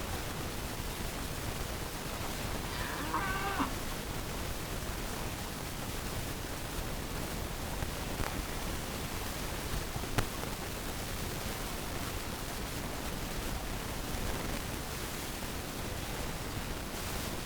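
Steady hiss of background noise, with a single short chicken call about three seconds in, rising and falling in steps. Two brief sharp clicks come later.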